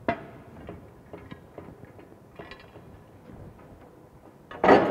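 PTFE thread seal tape being pulled off its roll and wound onto a steel pipe thread: a click, then faint scattered crackles and ticks. Near the end, a sudden loud knock with a ringing tail.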